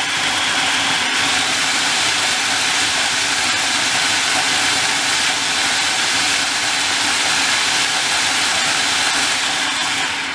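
Electric food processor running at full speed, its blades chopping diced serrano ham more finely; a steady, loud motor-and-blade whirr that begins to wind down at the very end.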